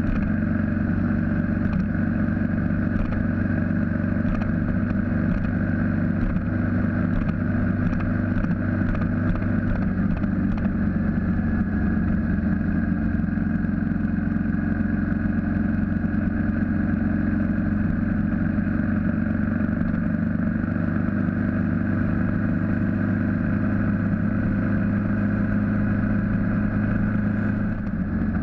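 BMW G650GS single-cylinder motorcycle engine running steadily at cruising speed, with wind rush on the bike-mounted microphone. Near the end the level dips briefly and the engine note changes.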